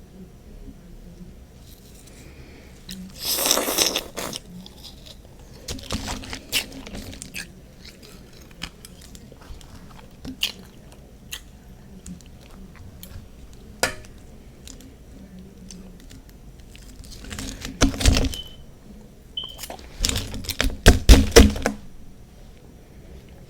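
Biting and crunching into refrozen freezer frost, in separate bursts: one about three seconds in, another about six seconds in, then a run of several crunches near the end, with small crackles and clicks of chewing between.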